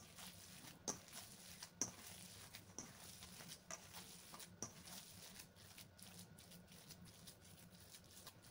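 Hands kneading and squeezing raw ground-meat mixture in a stainless steel bowl: faint wet squishing, with sharp ticks about once a second for the first five seconds.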